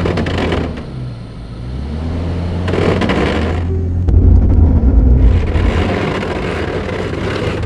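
A 4WD's engine running under load as the vehicle tries to drive forward, with a deep, steady rumble throughout. Three swells of rougher, broader noise come over it: at the start, about three seconds in, and from about five seconds on.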